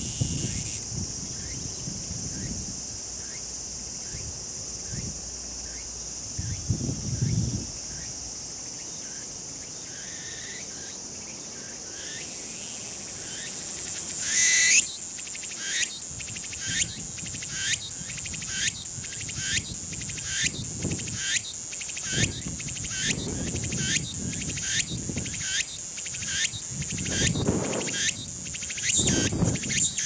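Tsukutsuku-boshi cicada (Meimuna opalifera) singing: a steady high buzz, then from about halfway a loud sweeping phrase repeated a little over once a second, the species' rhythmic 'tsuku-tsuku-boshi' call.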